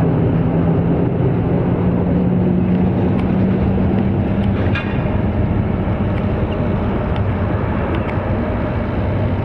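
Jet aircraft engines running steadily, heard across an airport apron, with a low hum that rises slightly and drops out about four and a half seconds in, then a higher hum from about five seconds.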